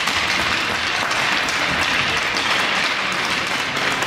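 Spectators applauding, a steady patter of many hands clapping.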